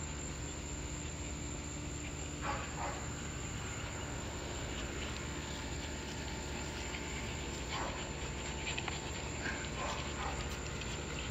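Steady chorus of insects in the background, with a few short, faint sounds from corgis close by, about two and a half, eight and ten seconds in.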